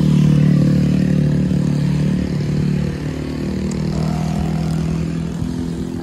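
Motorcycle engine running steadily at close range, a low even drone that eases off slightly after about three seconds.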